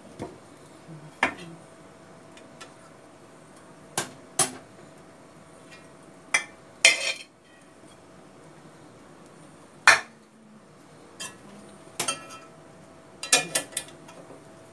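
Metal spoon clinking and knocking against an aluminium cooking pot and a frying pan as boiled rice and stir-fried vegetables are mixed together. About a dozen sharp, irregular clinks, with a quick run of several near the end.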